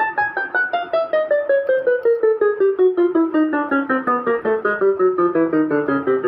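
Casio CTK-2550 portable keyboard playing a fast descending run of notes, about seven notes a second, stepping down steadily, then jumping back up and descending again about two-thirds of the way through. The audio output is working again after a burnt audio regulator was replaced.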